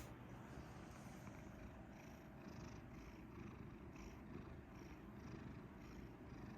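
Domestic cat purring quietly, a low continuous rumble with a faint regular pulse.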